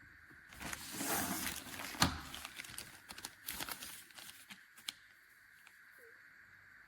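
Rustling and crinkling handling noise for a second or so, then one sharp click about two seconds in, followed by a few scattered lighter clicks and rustles.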